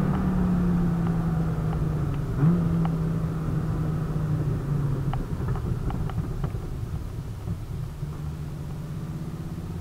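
Viper GTS's 8.4-litre V10 with aftermarket headers, heard from inside the cabin running at low revs as the car rolls slowly, with a short rise in engine pitch about two and a half seconds in. The note drops near the middle and settles into a lower, quieter steady rumble toward the end.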